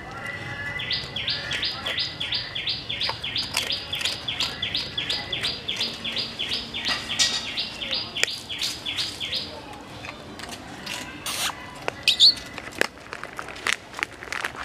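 A bird repeats a short high chirp about three times a second for some eight seconds, then stops. Sharp crunching clicks of a dog chewing biscuits run through it and continue after the chirping ends, the loudest a little past halfway through the second part.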